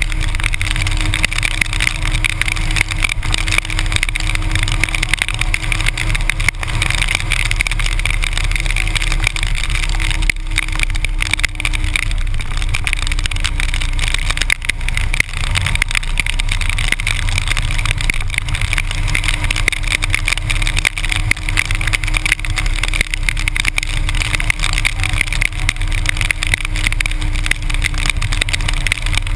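Harley-Davidson motorcycle cruising at highway speed in the rain: a steady engine drone under a loud, even rush of wind and wet-road noise on the camera's microphone.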